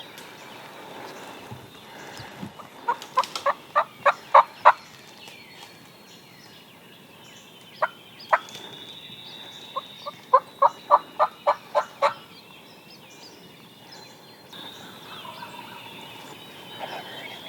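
Turkey yelps: two runs of sharp, evenly spaced notes, about seven in the first run some three seconds in and about eight in the second around ten seconds in.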